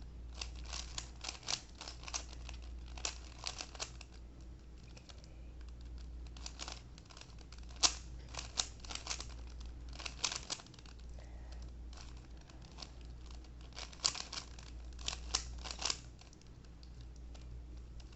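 3x3 Rubik's cube being turned by hand: its plastic layers click and rattle in quick runs of turns, with short pauses between runs. A steady low hum sits underneath.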